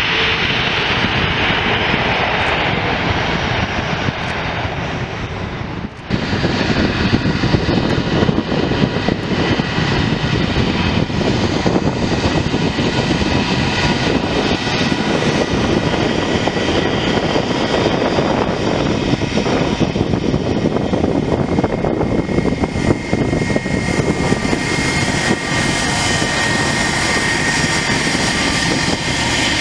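Airbus A320 jet engines running at low power as the airliner rolls and taxis past, a steady rushing noise with a whine. The sound cuts abruptly about six seconds in. After that a steady high whine comes through more clearly toward the end.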